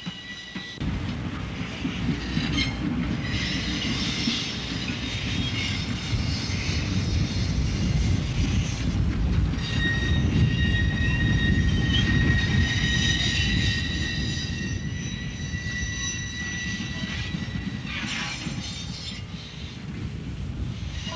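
Canadian National 5700, a K-5-a Hudson steam locomotive, and its train rolling along the track without working steam: a steady low rumble of wheels on rail that starts about a second in, with high thin squealing from the wheels above it.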